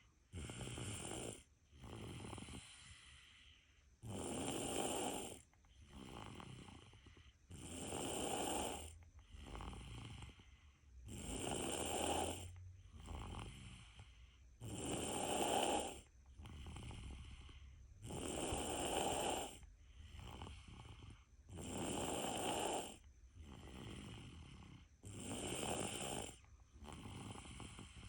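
Heavy snoring in sleep, with a regular breathing rhythm: a stronger snore about every three and a half seconds, each followed by a softer one.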